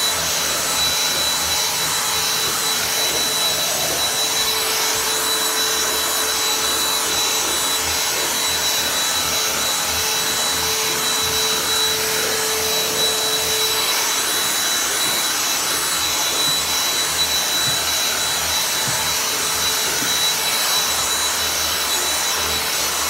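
Gtech cordless handheld vacuum cleaner running steadily with a high motor whine while being worked over the stairs; a lower hum joins for about ten seconds in the middle.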